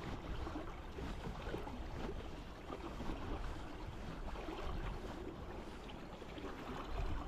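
Steady rush of the River North Esk's running water, with a low rumble from wind on the microphone.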